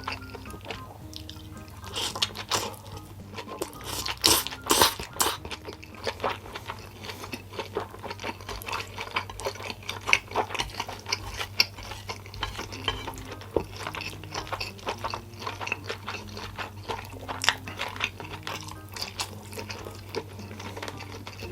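Close-miked chewing and eating sounds, many small crunches and clicks with a few sharper ones about four to five seconds in, over soft background music.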